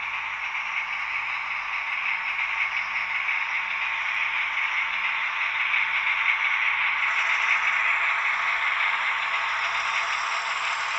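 H0 scale model diesel locomotive running on Märklin track, a steady whirring and rolling rattle that grows louder as it comes closer.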